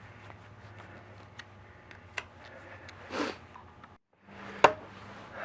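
Hand tools and small metal parts handled during reassembly: scattered light clicks and taps, a brief scrape about three seconds in, and one sharp loud clack near the end.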